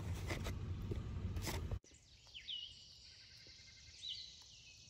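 A noisy outdoor background with a low rumble, cut off suddenly about two seconds in. It gives way to a quiet field where a bird gives two short whistled calls about a second and a half apart, over a steady high hiss.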